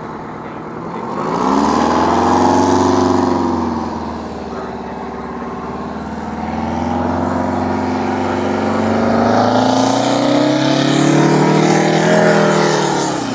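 A loud engine rising and falling in pitch twice: once about two seconds in, and again more slowly toward the end.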